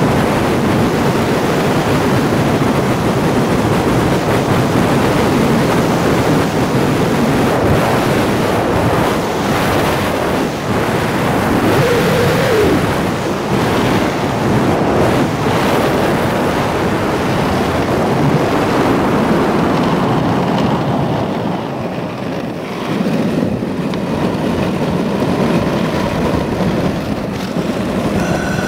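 Urethane inline-skate wheels of a full-body rolling suit running fast on asphalt, under steady wind rushing over the microphone. The rush eases briefly about two-thirds of the way through.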